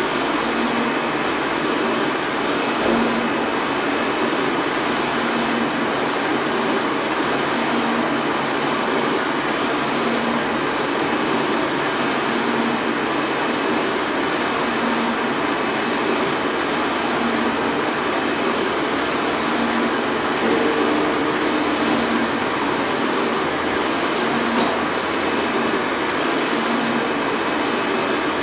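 Flatbed UV printer printing on a large plastic sheet: a steady mechanical whir and hiss from the moving print-head carriage and machine, pulsing evenly a little more than once a second.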